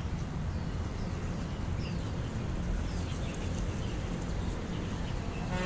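Steady outdoor low rumble with a few faint, short bird chirps.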